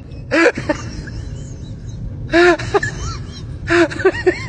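High-pitched laughing shrieks in short rising-and-falling bursts: one burst about half a second in, another about two and a half seconds in, then a quick run of cackles near the end.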